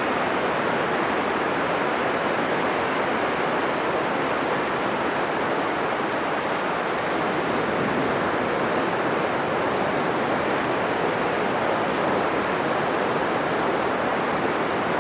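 Heavy Atlantic surf breaking on a sandy beach: a steady, continuous roar of churning waves with no single crash standing out.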